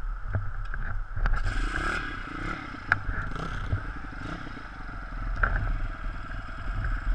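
A 160 cc pit bike's single-cylinder four-stroke engine running at low revs as the bike is edged through mud, with a few sharp knocks and scrapes along the way.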